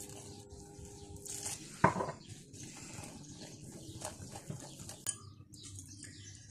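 A utensil stirring gram-flour batter in a glass bowl, with small clinks and scrapes against the glass and one sharper knock about two seconds in. Faint background music fades out in the first second and a half.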